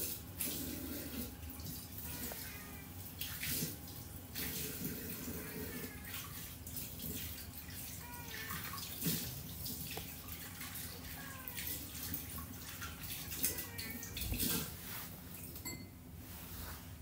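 Tap water running into a sink and splashing unevenly, with brief louder gushes.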